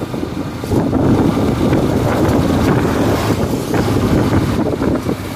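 Wind buffeting the microphone of a moving motorcycle, over the bike's running engine and road noise.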